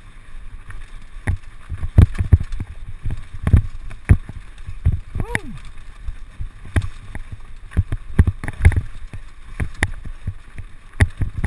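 Irregular knocks and rattles of a mountain bike jolting over loose stones on a rocky track, over a steady rush of wind on the microphone. About five seconds in, a short squeal rises and then falls in pitch.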